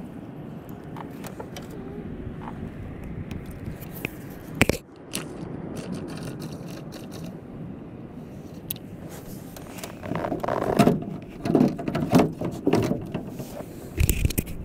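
Rustling and scraping of a fleece sleeve and hands close to the microphone over a steady low rushing. There is a sharp knock about four and a half seconds in, and a run of louder irregular scuffs from about ten to thirteen seconds in.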